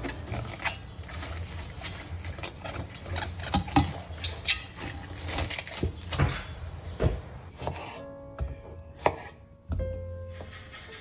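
Plastic cling film crinkling and crackling as it is pulled off a roll and pressed over a glass bowl, with many small clicks and taps. Near the end, background music comes in and a knife strikes a wooden cutting board.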